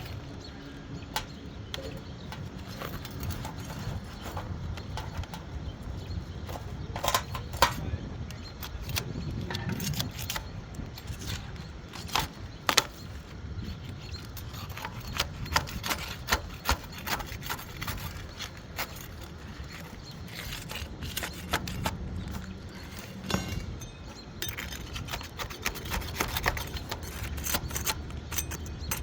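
Irregular clicks, taps and knocks of hand work on a shingle roof during a box vent replacement, over a low steady rumble.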